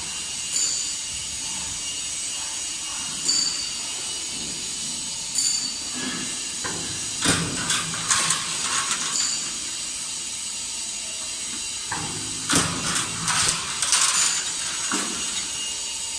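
A C strut channel roll forming machine running, with steel strip feeding through its forming rollers. It gives a steady high hiss with a few short, high squeaks early on and two spells of metallic clicking and clatter, one around the middle and one a few seconds before the end.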